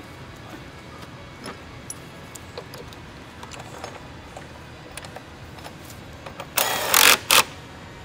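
A felt-covered car battery cover being pushed down into place over the battery: scattered light clicks and rubbing, then a loud scraping rustle about six and a half seconds in that lasts under a second, with a shorter one just after.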